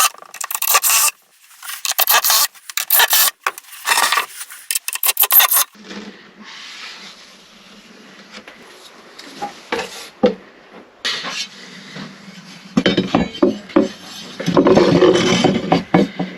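Wood being rasped and scraped in quick repeated strokes, loud for the first five seconds or so, then fainter scraping over a low steady hum, with a louder spell of scraping near the end.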